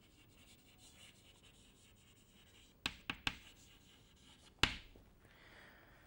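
Faint chalk scratching on a blackboard as a word is written. There are three quick sharp clicks about three seconds in, and a single louder click a couple of seconds later.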